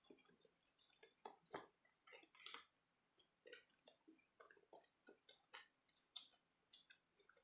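Faint eating sounds: chewing, with small irregular clicks and rustles as fingers pick fried rice off a paper wrapper.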